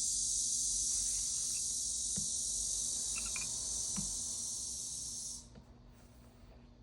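A steady high-pitched hiss that cuts off suddenly about five and a half seconds in, with a couple of faint soft knocks beneath it.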